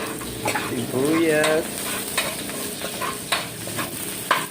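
Garlic and onion sautéing in hot oil in a pan, sizzling steadily, with the utensil clicking and scraping against the pan as they are stirred.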